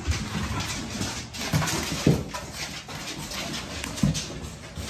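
American bully dogs jostling and scuffling on a tiled floor, with a couple of short dog sounds about two and four seconds in.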